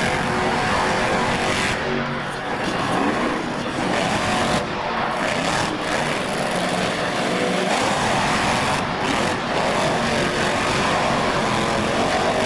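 Monster truck engines revving loudly while the trucks spin donuts on a dirt arena floor; the engine pitch rises and falls as the throttle is worked.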